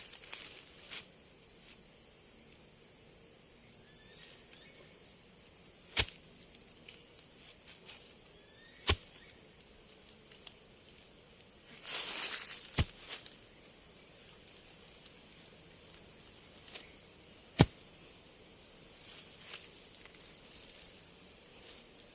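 Steady high-pitched drone of forest insects, with four sharp knocks spaced several seconds apart and a brief rustle near the middle.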